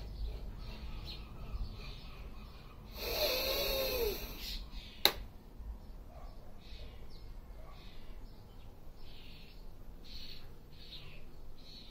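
A man breathes out hard through pursed lips for about a second as part of a qigong breathing exercise, with a hooting tone that rises and falls. About five seconds in his palms come together in one sharp clap. Birds chirp faintly throughout.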